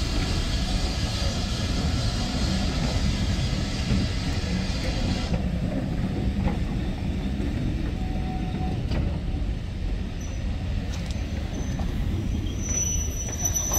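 Heritage steam railway's passenger coaches rolling past along a platform, their wheels rumbling on the rails. A hiss in the first five seconds stops abruptly, and a thin high-pitched wheel squeal sets in near the end.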